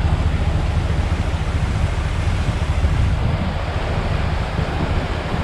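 A small creek swollen by recent rain, rushing steadily.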